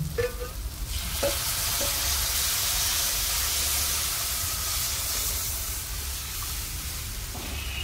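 Gram-flour kadhi batter poured into a hot kadai of fried onion, chilli and garlic masala, sizzling as it hits the pan. The hiss swells about a second in and slowly eases as the pan fills.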